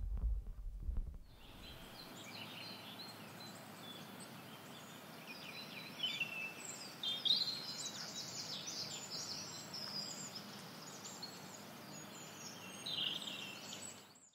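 Wild birds chirping and singing, many short high calls scattered over a faint steady hiss. A low tail of the music fades out in the first second or so, and the sound cuts off suddenly at the end.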